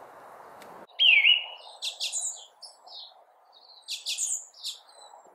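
Small songbirds calling: a swooping whistle about a second in, then several quick runs of high chirps and tweets.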